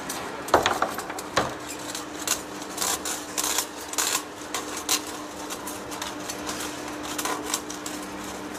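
Heavy-duty lathe running with a steady hum, over which come irregular metallic clinks and knocks. The sharpest knock is about half a second in.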